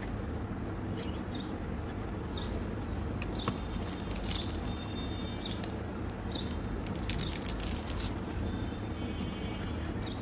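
Foil wrapper of a chocolate-coated wafer bar crinkling and being torn open in the hands, in short scattered crackles over a steady low hum.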